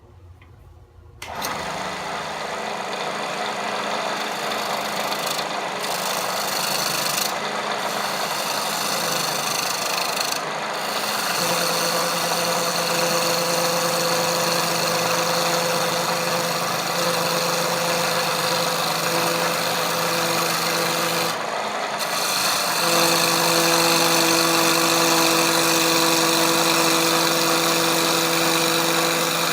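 Wood lathe starting about a second in and running with a steady hum, while a turning tool cuts the spinning walnut bowl with a continuous hiss. The hiss breaks off briefly a few times as the tool lifts from the wood.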